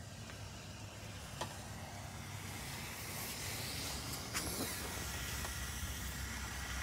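Handling noise from a phone being carried: nylon jacket and tent fabric rubbing against the microphone, with a few light clicks, over a steady low rumble. The hissing rubbing is strongest around the middle.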